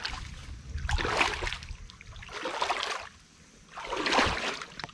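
Rustling and swishing of leaves and undergrowth in three separate bursts, as of someone pushing through or handling forest vegetation.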